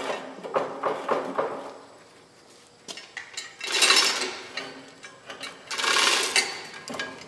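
Heavy metal clunks and scraping as the chain-hung final drive and sprocket of an Oliver OC46 crawler are worked against the frame: a quick run of knocks at the start, then two longer rattling scrapes about four and six seconds in. The final drive will not slide out, because its axle shaft sticks through too far.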